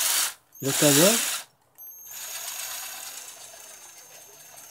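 Bosch GSR 12-2 12-volt cordless drill driver running forward with the trigger pulled, its chuck spinning: a steady motor whine over gear noise that starts suddenly about two seconds in and slowly gets quieter.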